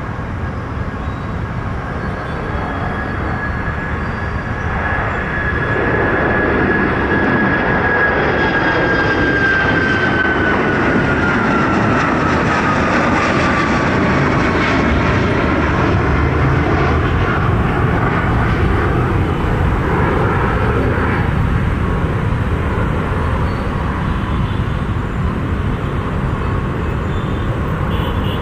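Jet aircraft engines running loud as a plane passes, the noise swelling about five seconds in, with a high whine that holds and then drops in pitch.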